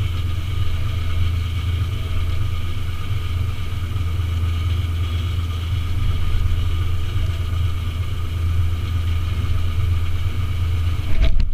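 An engine idling steadily: a constant low hum with steadier higher tones over it. A sharp click near the end.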